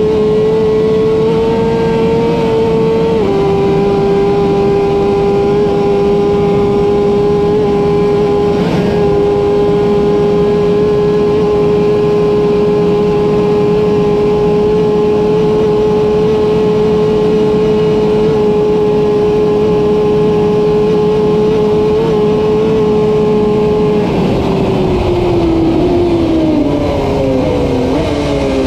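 Kawasaki Ninja ZX-10R superbike's inline-four engine at full throttle, a loud steady high note over wind rush. About three seconds in it shifts up and the pitch drops a little; near the end the bike comes off the throttle and the pitch falls in steps as it shifts down while slowing.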